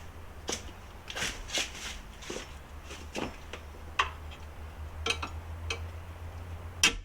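Irregular clinks and knocks of hand tools on steel suspension parts during the front suspension tear-down, with a sharper knock near the end, over a steady low hum.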